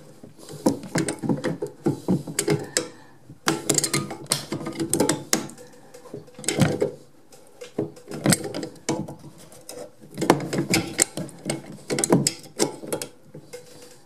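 Hand grips clicking and rasping on a toilet fill valve's back nut as it is tightened from under the cistern, in short bursts of stroke-by-stroke turns with brief pauses between them.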